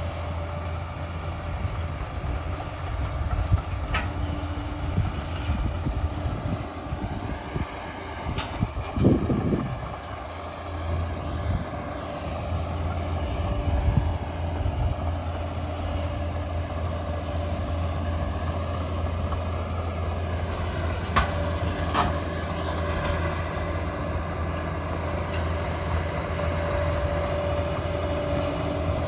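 Liebherr 746 crawler dozer's diesel engine running steadily under work, with its steel tracks clattering and occasional sharp metallic knocks.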